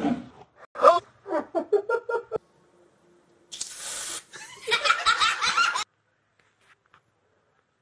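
People laughing in short bursts, with a brief hiss about three and a half seconds in, followed by more high-pitched laughter.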